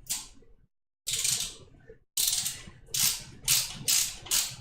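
A screwdriver turning the heatsink's mounting screws, giving a series of short ratchet-like rasping strokes that come faster, about two a second, in the second half.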